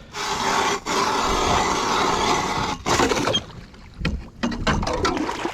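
Ice auger drilling a hole through thin lake ice: a steady dense noise for nearly three seconds, then a short burst and quieter irregular sounds near the end.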